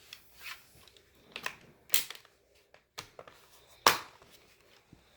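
A handful of sharp clicks and knocks of a laptop's plastic parts being handled, with short quiet gaps between them; the loudest knock comes near the end.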